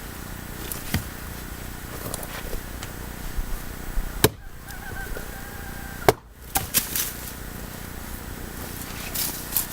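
Green, wet firewood being chopped by hand: a few sharp single strikes several seconds apart, the two loudest about four and six seconds in, followed by a couple of lighter knocks.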